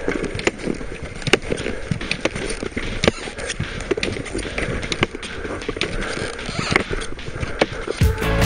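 Touring skis sliding and crunching uphill through snow, with irregular clicks and knocks from each step and pole plant. Music starts just before the end.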